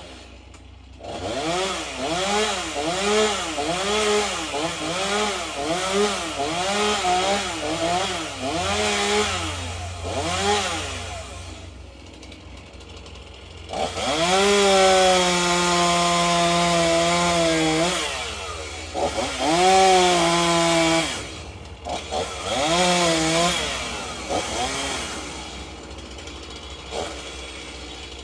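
Two-stroke chainsaw revved in quick throttle blips, about two a second, for the first several seconds. After a lull it is held at full throttle for a few seconds at a time, cutting wood, with short pauses between cuts. It revs up again near the end.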